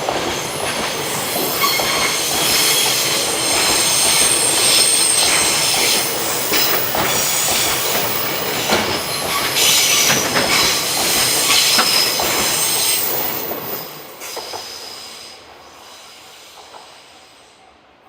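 Freight train passing close by, its wagon wheels rumbling and clattering on the rails with high-pitched wheel squeal. The sound dies away over the last few seconds as the train goes.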